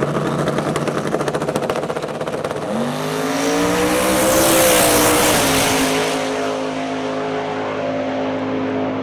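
Twin-turbo 427 cubic inch LS-based V8 on methanol in a Holden VL Calais drag car: a fast stuttering crackle at the start line, then the launch about three seconds in, the engine note rising hard as the car accelerates past. It is loudest about four to five seconds in, then drops to a steadier note as the car runs away down the track.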